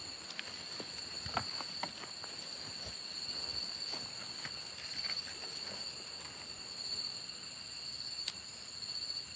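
Steady chorus of night insects such as crickets, a constant high-pitched trilling, with scattered soft clicks and rustles, typical of steps on dry leaf litter.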